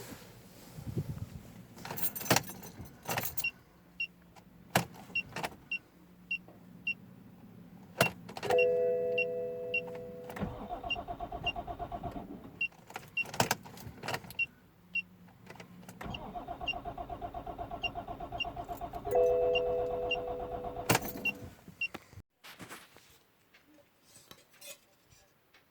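A BMW E61 525d being turned over in two spells, each with a fast rhythmic buzzing and steady chime-like tones, while something ticks about twice a second; sharp clicks and knocks fall between them. This fits the car's no-start condition.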